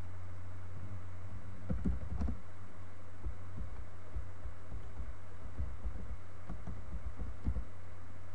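Computer keyboard being typed on in short, irregular runs of key taps, starting about two seconds in, over a steady low hum.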